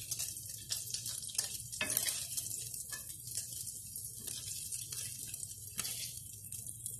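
Bacon sizzling and crackling in hot fat in a frying pan, with scattered light clicks of tongs against the pan as the strips are lifted out.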